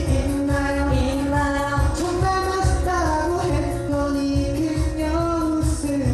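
Pop song with a sung melody over a steady, heavy beat.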